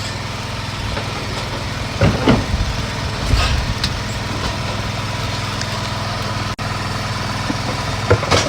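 Steady loud low machine drone, with crisp crunches of snap peas being bitten and chewed about two seconds in, again a second later, and near the end.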